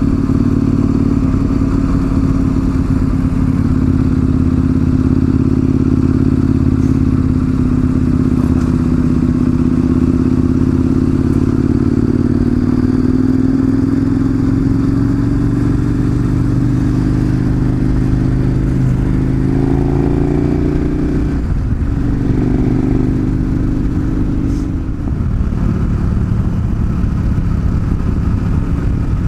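Large twin-cylinder adventure motorcycle engine running under way on a dirt road, its note slowly rising as it pulls. About 21 seconds in the engine note drops briefly, then picks up again.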